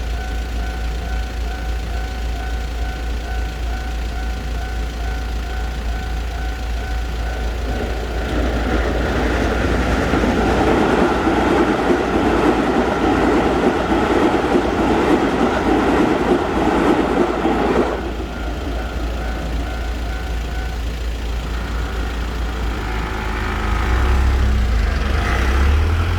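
Japanese level-crossing warning bell ringing in a steady repeating two-tone pattern. About eight seconds in, a Keisei 3100-series electric train runs loudly through the crossing for about ten seconds, with some wheel clatter. The bell is heard again after the train passes and stops at about 21 seconds, and a low rumble swells near the end.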